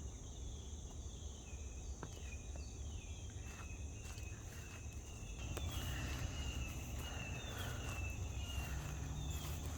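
Insects trilling steadily at a high pitch, with a bird giving short falling chirps over and over.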